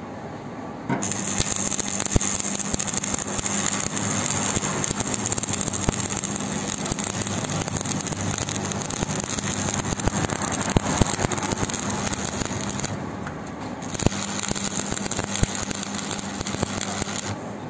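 Stick (arc) welding a seam on a steel sheet: the electrode's arc crackling and sizzling steadily, with a low steady hum beneath. It strikes about a second in, thins briefly about three-quarters through, and stops just before the end.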